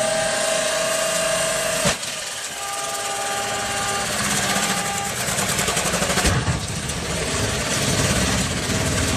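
Machinery engines running, a steady mechanical din that changes abruptly about two seconds in and again about six seconds in.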